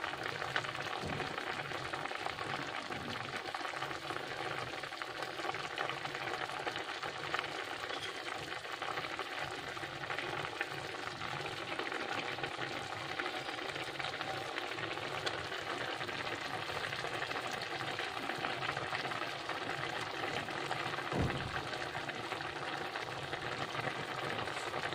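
Tomato gravy boiling vigorously in a pan with raw black-gram dumplings poaching in it: a steady bubbling crackle.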